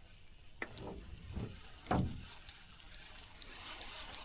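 A sharp click and a few dull knocks, then a heavy thump about two seconds in, with faint short high chirps repeating about twice a second.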